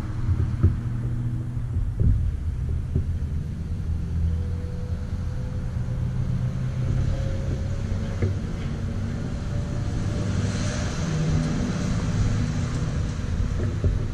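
Steady low rumble of an engine running nearby, with a faint whine that slowly rises in pitch through the middle.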